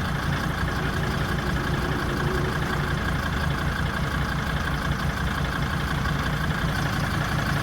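Mercedes OM612 2.7-litre five-cylinder diesel idling steadily with a rhythmic booming knock into the intake, a fault that began after a cylinder head replacement.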